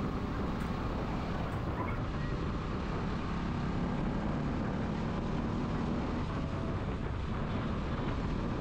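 Motorcycle engine running steadily at cruising speed, with road and wind noise.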